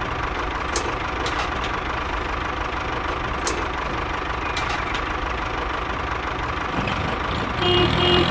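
Steady engine idling rumble, with a few light clicks and taps over it. Near the end a different pitched sound comes in.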